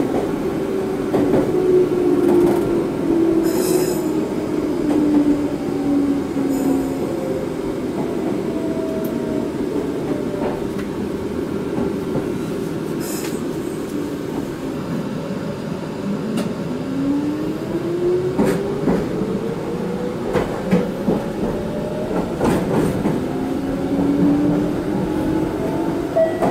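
Meitetsu electric commuter train running, with a steady rumble of wheels on rail and scattered clicks over rail joints. Its motor whine falls in pitch over the first several seconds, then rises again from about two-thirds of the way through as the train speeds up.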